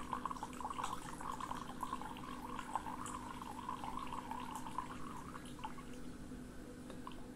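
A thin stream of water trickling from a glass into a stainless steel bowl of water, a steady splashing patter that stops about six seconds in.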